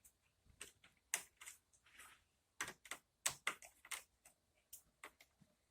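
Irregular small clicks and taps of screwdriver work on a laptop's bottom case as screws are taken out, sharp ticks coming unevenly with short gaps between.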